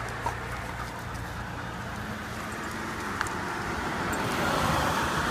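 Road traffic noise: a car passing on the street, swelling to its loudest near the end, with a couple of faint clicks.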